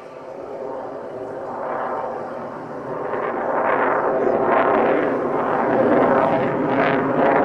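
Jet roar of an F-22 Raptor's twin Pratt & Whitney F119 turbofans as it flies its display. The roar grows louder over the first few seconds, then stays loud, swelling in repeated surges.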